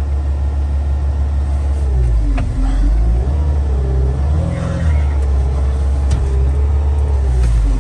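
Caterpillar 259D compact track loader's diesel engine running, heard from inside the cab: a steady low rumble with a whining tone that rises and falls several times.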